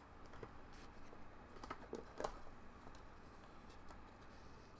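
Faint handling sounds from a cardboard card box and plastic card cases: a few light taps and clicks as the box is opened and the cases are lifted out.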